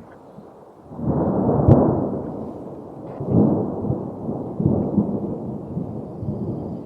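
Thunder rumbling low. A roll swells about a second in with a sharp crack, then rolls again twice more and slowly tails off.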